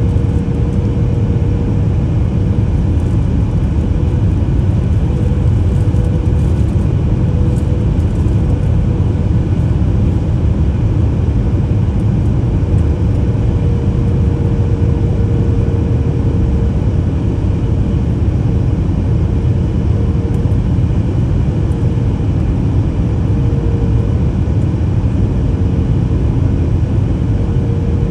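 Steady cabin roar inside a Boeing 737 MAX 8 on approach: its CFM LEAP-1B engines and the airflow past the fuselage make a deep, even rumble, with a faint steady mid-pitched hum running through it.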